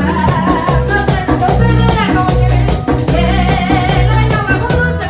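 Live merengue típico: a button accordion playing the melody with singing, over a bass line, drums and a rapid, even metal-scraper rhythm from a güira.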